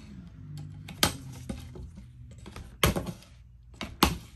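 Plastic zip ties being cut through with the Damned Designs Fenrir's D2 wharncliffe blade: sharp snaps as the ties part, three loud ones about a second in, near three seconds and at four seconds, with smaller clicks between.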